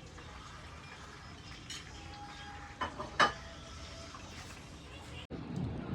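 Quiet kitchen sounds: a low steady hiss with a few light clinks of a utensil against a pot, the sharpest about three seconds in.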